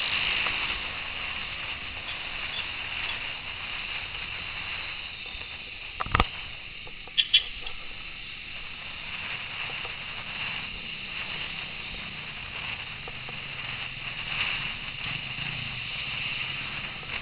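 Steady wind and road rush on a camera mounted on a moving motorcycle in traffic, with one sharp knock about six seconds in and a couple of short high chirps a second later.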